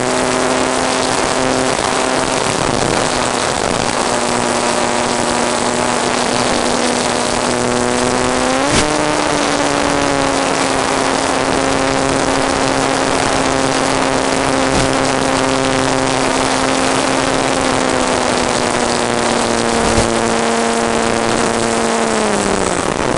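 Model airplane's motor and propeller running at steady throttle over a strong rush of air. The pitch jumps up about a third of the way in, holds, and falls away near the end as the throttle comes back.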